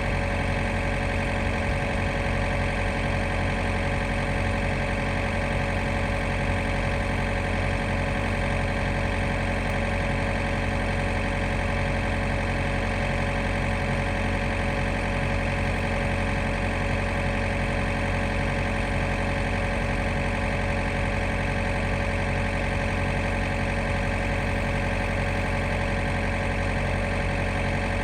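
An engine running steadily, with no change in speed or load.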